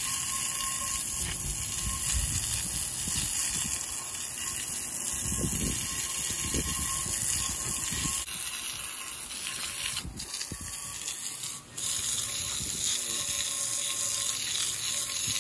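Garden hose spray nozzle hissing steadily as its jet splashes onto a metal weight plate on grass, rinsing off loosened rust. The spray briefly eases about three-quarters of the way through.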